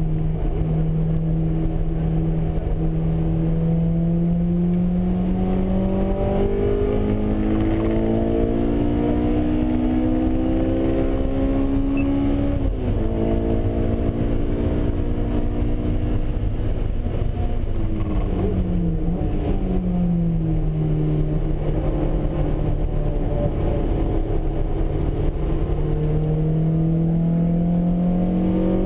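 Honda S2000 (AP1) 2.0-litre four-cylinder engine under hard track driving, heard inside the cabin. The note climbs steadily, with a quick dip a little under halfway through as a gear change. It climbs again, falls away about two-thirds through as the car slows for a corner, and rises once more near the end.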